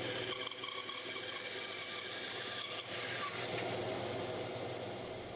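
Band saw running steadily, its blade cutting through a wooden drawer blank.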